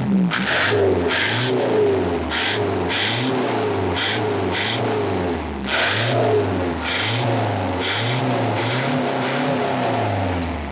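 Naturally aspirated four-cylinder engine of a race-built Isuzu TFR pickup, revved in quick repeated blips, its pitch rising and falling about once a second. It is very loud through a short exhaust that exits just ahead of the rear wheel.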